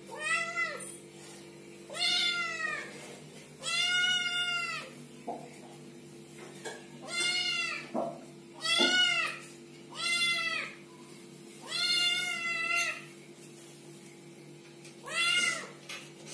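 A kitten meowing eight times at irregular intervals, each call about half a second to a second long and rising then falling in pitch.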